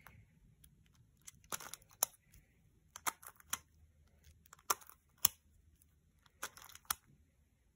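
A plastic skewb puzzle being turned by hand: four turns, each a quick burst of clicks and clacks as the pieces snap round, about a second and a half apart.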